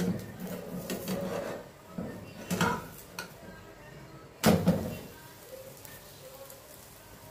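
A spatula knocking and scraping on a non-stick frying pan as a paratha is lifted and turned over, with a few sharp knocks; the loudest is a quick double knock about four and a half seconds in.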